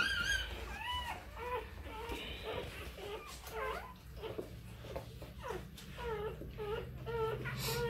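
Newborn XL American Bully puppies squeaking and mewing in short, repeated high cries, opening with a sharp rising squeal.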